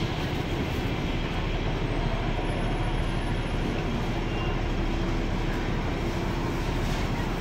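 Steady low rumble of city street traffic with a faint hum, heard from inside a Hong Kong double-decker tram standing still.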